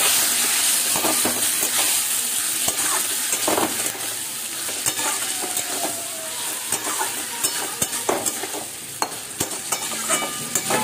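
Kohlrabi cubes frying in spiced oil in a metal kadai, sizzling steadily while a spatula stirs them and scrapes and taps against the pan. The sizzle eases a little about four seconds in.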